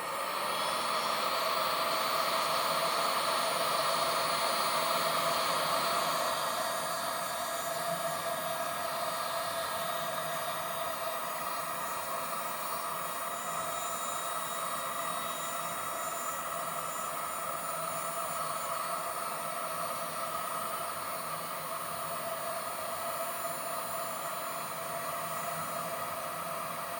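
Electric heat gun switched on and running steadily: a blower whine over a rush of hot air. It is a little louder for the first six seconds or so, then settles.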